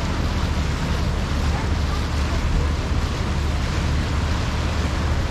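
Steady wind rush on the microphone on a moving river cruise boat's open deck, over the constant low drone of the boat's engine and water rushing past the hull.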